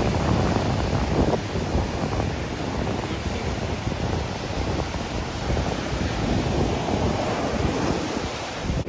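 Ocean surf washing onto the beach, with wind gusting across the microphone in a steady low rumble.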